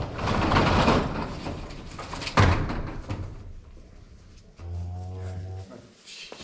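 Barn's overhead door being raised, a loud rattling for the first couple of seconds with a sharp bang about two and a half seconds in. A cow then moos once, low and about a second long, near five seconds in.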